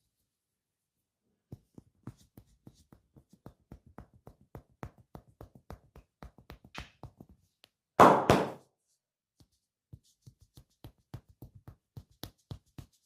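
Barber's hands giving a percussive massage: quick, light taps on the client's skin, several a second, broken about eight seconds in by a loud double smack of the hands.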